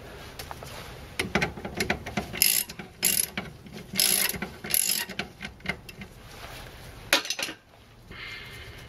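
Hand ratchet wrench clicking in short bursts as a suspension nut is turned, with four louder runs of rapid ratcheting in the middle and a few more clicks near the end.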